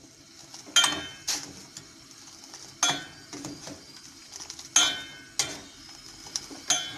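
Steel ladle knocking against the side of a stainless steel pot about six times, each a sharp ringing clink, as boiling Kashmiri tea is scooped up and poured back to aerate it.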